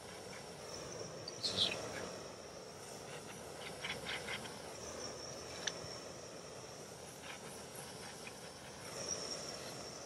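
Insects droning in a steady high tone over a faint, even hiss from a handheld propane torch melting grass-tree resin. A short falling chirp comes about a second and a half in, and a few light clicks follow around four seconds.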